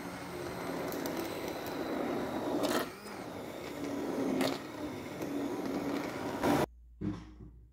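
Immersion blender running in a pot of thick haleem, its motor whirring as the blade churns the mixture, with a couple of brief knocks along the way. The blender cuts off abruptly about a second before the end.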